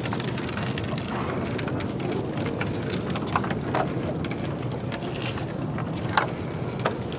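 Small boat engine running steadily, with water noise and a few short clicks as the gill net is hauled in.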